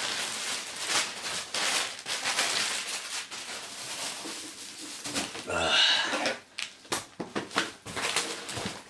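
Bubble wrap and plastic packaging rustling and crinkling as it is pulled and handled, with scattered sharp clicks toward the end. A short grunt-like voice sound about six seconds in.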